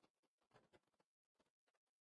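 Very faint crinkling and tearing of a foil trading-card pack wrapper being ripped open by hand, in irregular crackles, heaviest about half a second in and stopping near the end.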